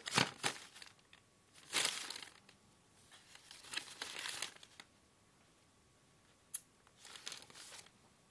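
Paper rustling in several short bursts as sheets of a written document are handled and leafed through, with one brief sharp tick about six and a half seconds in.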